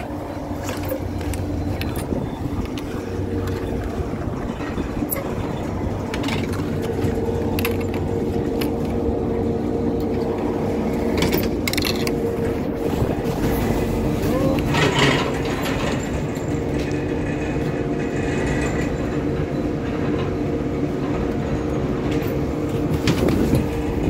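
Fixed-grip quad chairlift's station machinery running with a steady mechanical hum, with a few sharp clicks and knocks as chairs pass through the station.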